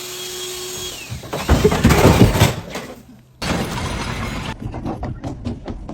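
A loud crash: a second-long burst of heavy impacts and clatter, like something breaking or falling. After it comes a run of quick knocks and clicks.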